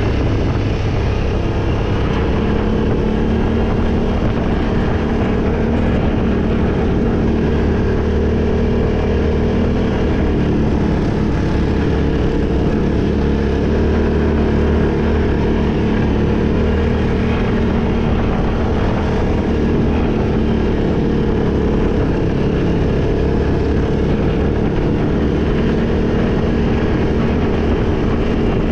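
Off-road vehicle's engine running at steady revs while driving, with a low, even drone and no rise or fall in pitch.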